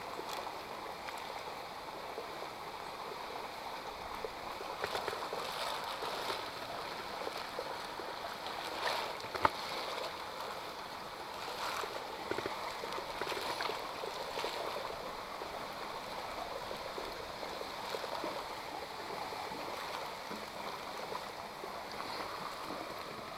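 Creek water flowing steadily, with one sharp click about nine seconds in.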